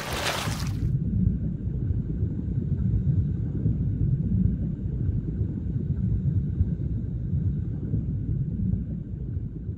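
Low, steady rumbling of a rough, icy sea, used as a soundtrack effect. A loud rushing whoosh dies away about a second in, and a faint high held tone sits above the rumble.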